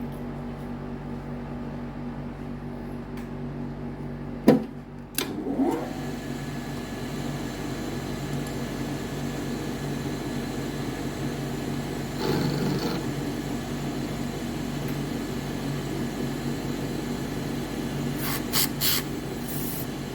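A motor running steadily with a hum, with two sharp knocks about four and a half seconds in, a short rising whine just after them, and a few brief louder passages near the middle and the end.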